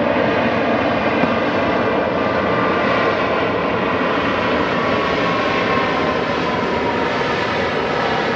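Boeing 737 MAX 8's CFM LEAP-1B jet engines running during the landing rollout, a loud steady rush with a whine that falls slightly in pitch in the second half.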